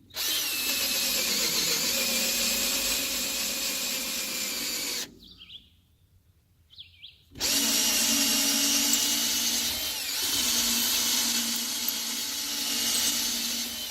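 Electric drill running in low gear, reaming out a bolt hole so the shear pin will fit. It runs steadily for about five seconds, stops for a couple of seconds, then runs again.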